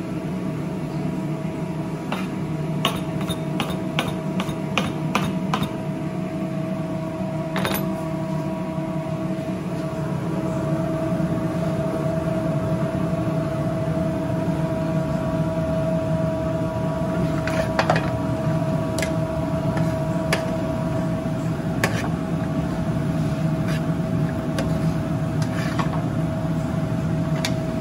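Steady hum of commercial kitchen equipment with a constant tone in it. Over it, a quick run of knife chops on a cutting board comes a few seconds in, and later a scattering of single clinks from a spoon in a metal sauté pan.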